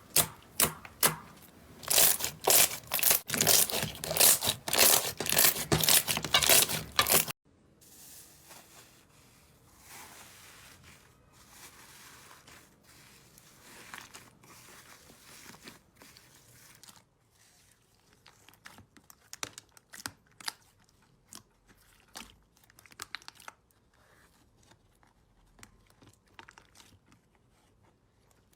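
Slime being squeezed and stretched by hand, with loud, dense crackling for about the first seven seconds. It then cuts to much quieter, softer squishing with scattered small pops and clicks near the end.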